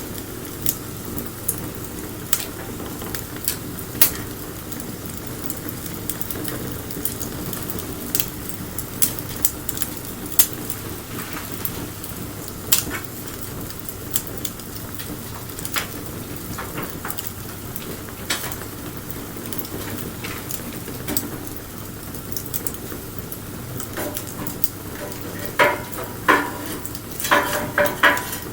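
Wood bonfire burning: a steady hiss broken by sharp crackles and pops every second or so. Near the end comes a short cluster of higher-pitched squeaks or whistles among the crackles.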